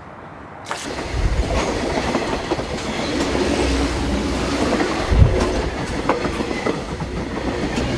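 Vehicle noise: a steady rumble with scattered clicks, starting about a second in.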